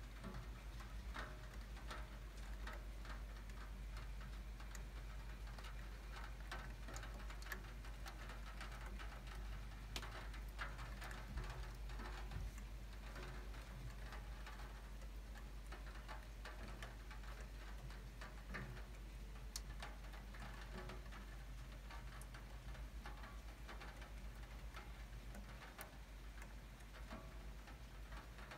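Light rain, with raindrops ticking and dripping irregularly onto a window and sill, over a low steady hum.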